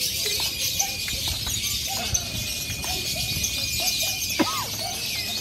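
Dense chattering of many lovebirds singing at once, the fighter-class contest birds overlapping in a continuous high chirping. A sharp click sounds about four seconds in.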